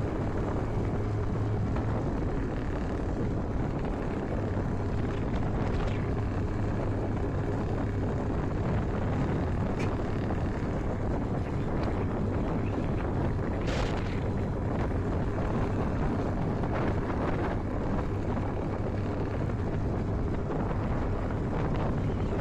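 IZh Jupiter 5's two-stroke twin-cylinder engine running steadily while the motorcycle is ridden, with wind rushing over the microphone. The engine has a ringing and knocking that the owner takes as a reason to strip and rebuild it.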